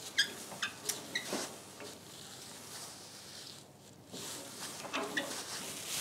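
Faint, scattered metal clicks and light knocks as the log lifters of a chainsaw mill are set to different heights under a log, in a cluster in the first second and a half and again about five seconds in.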